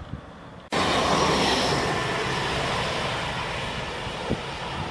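Orange diesel regional railcar running on the track, its engine and wheel noise cutting in suddenly under a second in and then slowly fading as it draws away.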